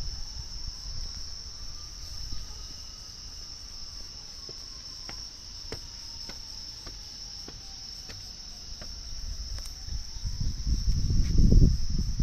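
Night chorus of crickets and other insects, a steady high-pitched trill, with a distant tornado siren slowly rising and falling in pitch beneath it. A few sharp ticks come through, and a loud low rumble builds near the end.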